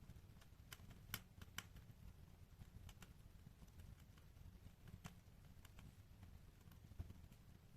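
Faint crackling of a wood fire in a fireplace: irregular sharp snaps and pops, the loudest about a second in and near the end, over a soft low rumble.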